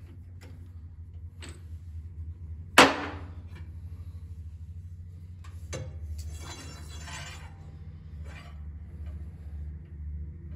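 Metal clicks and clanks from handling a metal lathe's chuck and sliding a steel rod through its spindle. One sharp ringing clank about three seconds in, then a rattling scrape around six to seven seconds, over a steady low hum.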